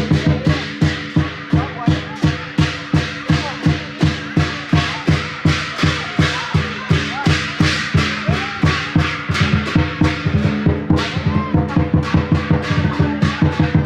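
Drums and cymbals beaten in a fast, steady rhythm of about three to four strokes a second, each stroke with a bright metallic crash, over a steady held drone.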